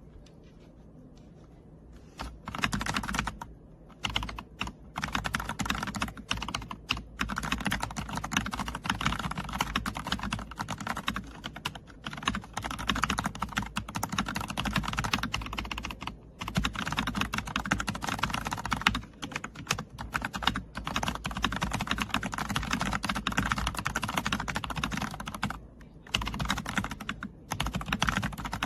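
Fast typing on a Redragon K668 full-size mechanical keyboard: a dense run of key clacks that starts about two seconds in and goes on with a few brief pauses.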